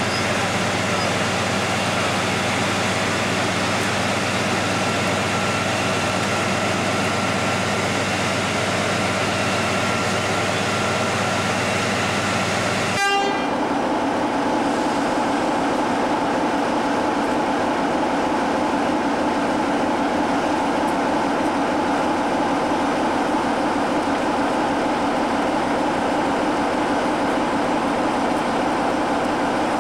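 Diesel locomotive engines idling steadily: first an HST (Class 43) power car, then, after a brief horn toot about halfway through, a Class 45 'Peak' diesel with a deeper, steady drone.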